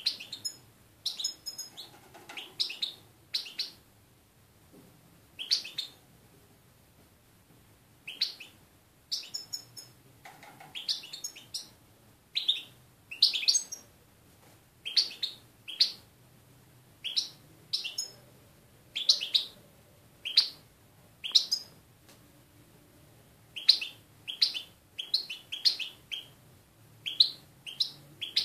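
European goldfinch singing: short, high chirps in quick clusters, with pauses of a second or two between phrases.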